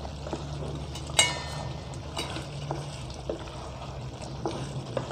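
Wooden spoon stirring thick mutton curry in a pot: wet squelching and scraping with a few light knocks, and one sharper ringing knock about a second in. A steady low hum runs underneath.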